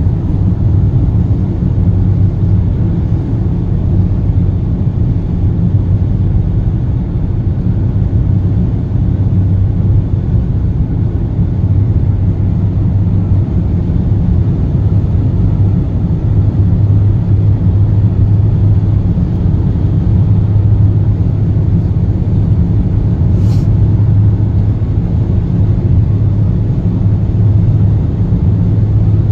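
Steady low drone of a car cruising at highway speed, heard from inside the cabin: engine and tyre road noise with no change in pace.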